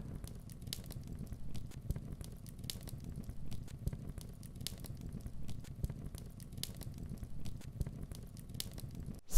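A crackling sound effect: irregular sharp crackles scattered over a low rumble, cutting off abruptly near the end.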